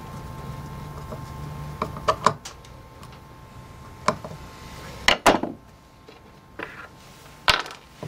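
Screwdriver driving small screws into the metal hub of an old Foredom Series H flex-shaft motor. There is a low steady hum for the first two seconds, then scattered sharp metal clicks and knocks, loudest about five seconds in.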